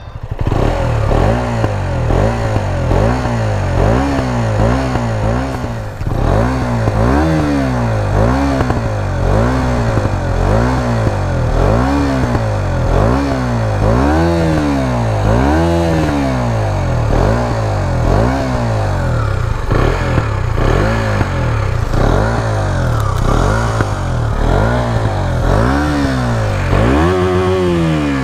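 2017 KTM Duke 125's single-cylinder engine through its stock exhaust, revved again and again in short throttle blips. The pitch climbs and drops back about once a second, with some blips taken noticeably higher than others.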